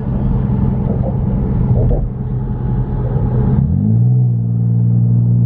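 Car engine and road rumble while driving. Near the end the rumble gives way to a steady drone that slides up in pitch and then holds.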